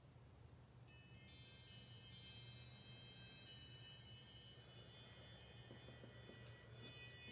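Chimes ringing to close a meditation: a cluster of bright, high ringing tones starts about a second in and is struck again several times, the tones overlapping as they ring on.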